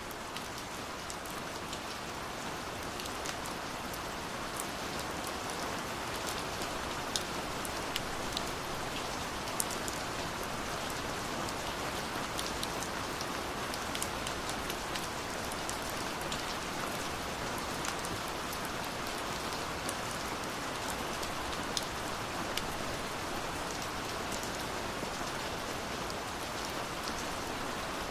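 Steady rain falling, a continuous hiss with many sharp drop ticks scattered through it.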